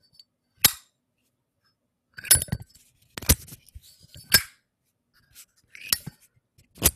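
Zippo lighter's hinged metal lid being flicked open and snapped shut again and again, close to the microphone: about six sharp metallic clicks spread over a few seconds.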